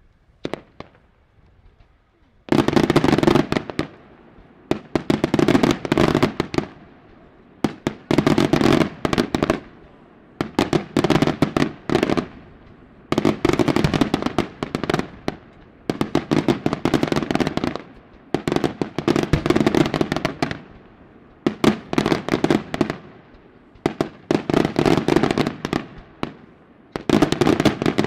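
Daytime fireworks: volleys of rapid, sharp bangs and crackling, each lasting about a second, repeating roughly every two seconds from about two and a half seconds in.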